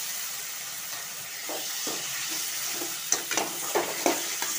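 Chopped tomatoes frying with onions in hot oil in a metal kadai, sizzling steadily, with a metal slotted spoon stirring them and scraping and clinking against the pan from about a second and a half in.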